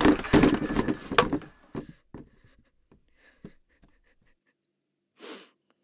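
Red plastic chairs being kicked over and thrown: a loud clattering crash of plastic on plastic and on the floor in the first two seconds, followed by a few lighter knocks as they settle. A brief rush of noise comes near the end.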